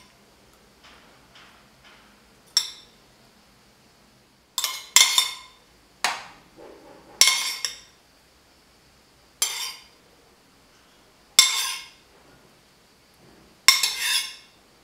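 A metal spoon clinking against a ceramic bowl as tomato passata is scooped out and spooned on, about eight sharp ringing clinks at irregular intervals.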